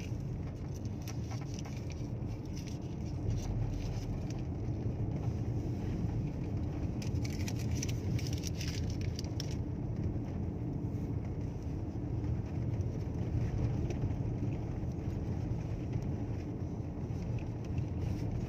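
Car cabin noise while driving: a steady low rumble of engine and tyres on the road, with scattered light clicks and rattles and a stretch of brighter hiss about halfway through.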